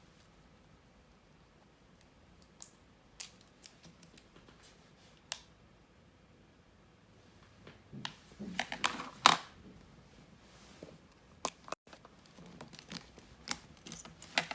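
Handling noise: scattered clicks and short rustles, with a busier cluster of clicks and rustling about eight to nine and a half seconds in.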